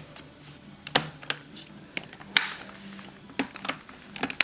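Plastic parts of a Shark vacuum clicking and knocking as they are handled, irregular sharp clicks with a brief scraping rustle about halfway and the loudest knock near the end; the motor is not running.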